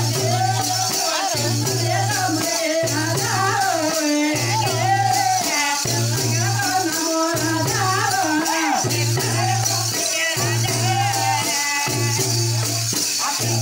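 Music with a repeating low beat about once a second under a wavering, ornamented melody, with a constant high shaker-like rattle.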